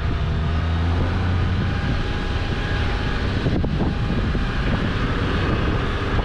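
Four-wheel drive's engine running while driving through soft beach sand. Its low hum fades about two seconds in, leaving a steady rushing noise.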